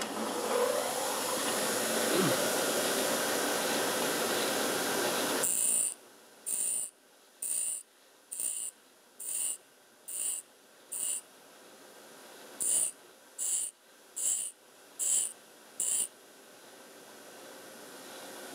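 Bench grinder running as a twist drill bit is ground against its stone, a steady noise for about six seconds that cuts off suddenly. Then come eleven short, evenly spaced bursts of sound, about one a second in two runs, with near silence between.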